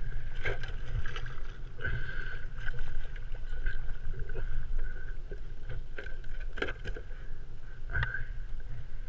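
Water slapping and splashing against the plastic hull of a sit-on-top fishing kayak as a cod is brought alongside and handled at the surface. Wind rumbles on the microphone, a faint steady high hum runs underneath, and there are occasional short knocks and splashes.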